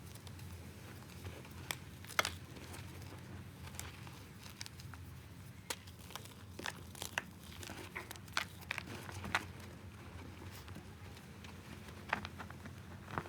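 Balls of reformed gym chalk being crushed, giving irregular sharp crunches and crackles, over a low steady hum.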